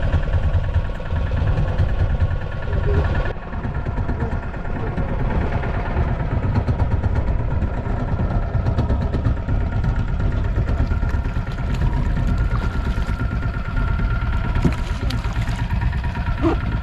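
A fishing boat's engine running steadily, a constant hum over a low rumble, with a slight break about three seconds in.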